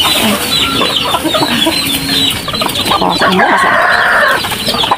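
Village chickens clucking, with a rooster's long crow about three seconds in, over a constant run of short high chirps.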